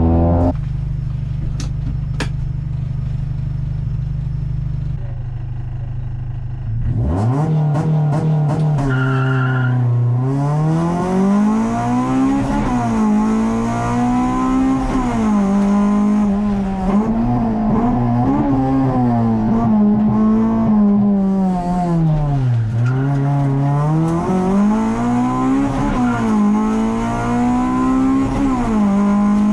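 Honda Civic EK4's B16 four-cylinder engine heard from inside the cabin: it runs steadily for the first several seconds, then pulls away about seven seconds in and is driven hard, its revs rising and falling again and again with throttle and gear changes. A short two-tone beep sounds about nine seconds in.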